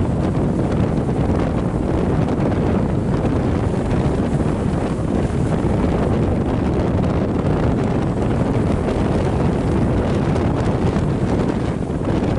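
Loud, steady wind buffeting the microphone, a low rumbling rush.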